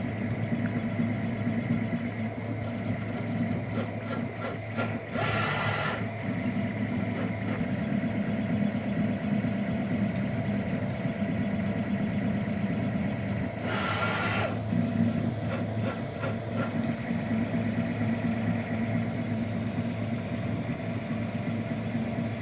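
Monoprice Select V2 (Prusa i3-style) 3D printer running a print at a sped-up 400% print speed: stepper motors and fan running with a steady mechanical hum. Two louder rushes of noise, each about a second long, come about five and fourteen seconds in.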